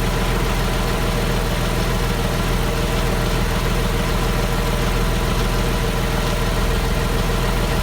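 Porsche Boxster engine idling steadily after start-up, making the engine noise that the owner is querying.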